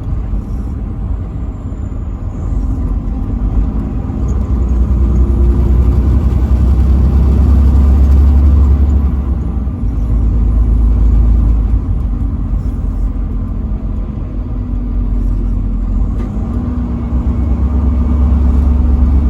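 Truck driving on the highway: a steady low engine and road rumble that swells and eases, with an engine hum coming up about three-quarters of the way through.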